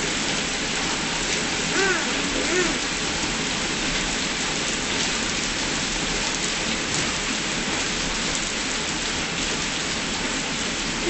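Heavy rain pouring down steadily, a dense hiss of rain on hard surfaces. A brief faint voice rises about two seconds in.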